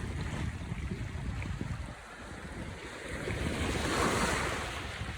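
Sea water rushing and wind buffeting the microphone, with one surge of noise swelling to its loudest about four seconds in and then easing off.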